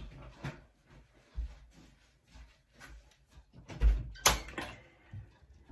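Handling noises of cleaning up with a paper towel at a bathroom sink: a string of small knocks and bumps, with the loudest sharp rustling knocks a little under four seconds in.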